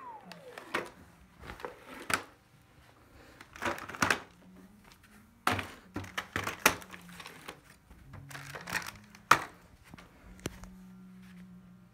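Dyson cordless stick vacuum motors winding down with a falling whine in the first half second. Then come scattered knocks, clicks and rustles as the plastic vacuums are handled and set down on a rug, with the sharpest knocks about two, four, five and a half and nine seconds in.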